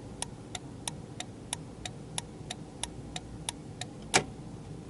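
Ford Explorer turn signal flasher relay clicking on and off evenly, about three clicks a second, with one louder click a little after four seconds in. The steady clicking is the sign that the relay is flashing the turn signals again rather than freezing with them lit.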